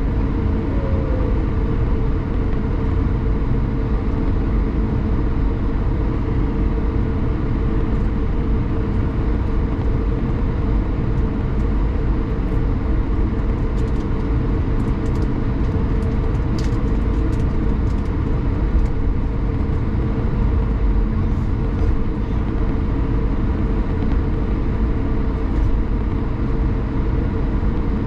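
Steady cabin drone of an Airbus A220-300's Pratt & Whitney PW1500G geared turbofans running at low power on the ground before takeoff, heard inside the cabin, with a steady hum through it. A few faint ticks come about halfway through.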